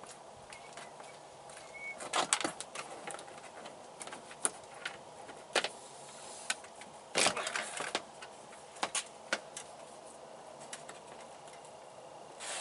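Hands handling and routing the remote-start antenna cable: scattered rustles and light clicks, with louder bursts of rustling about two seconds in and again around seven seconds in.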